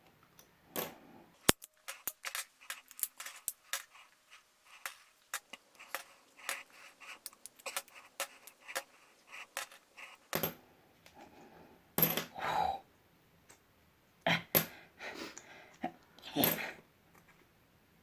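Metal coins clicking and clinking as they snap onto a powerful magnet: a quick run of small clicks over the first ten seconds, then a few louder clacks spaced a second or two apart.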